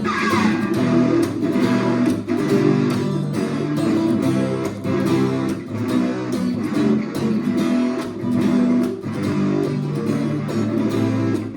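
Two guitars playing the instrumental intro of a rock song, with steady rhythmic strumming over chords and melody notes.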